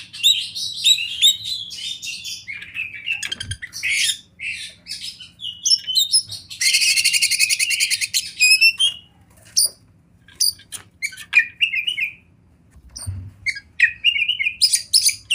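Oriental magpie-robin (kacer) singing a loud, varied song of quick whistled and chattering phrases. About halfway through it runs into a fast rattling trill of a couple of seconds, and it pauses briefly twice near the end.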